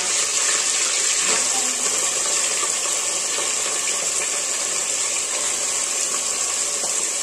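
Steady rushing hiss of a lit gas stove burner.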